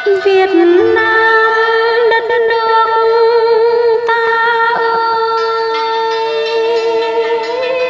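Vietnamese poetry chanting (ngâm thơ): a woman's voice holds one long, slightly wavering note after a quick rise at the start, over instrumental accompaniment.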